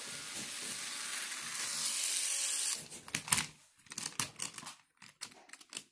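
Handling noise around a plastic Lego train set: a steady rustling hiss for nearly three seconds, then a run of scattered clicks and knocks of plastic pieces.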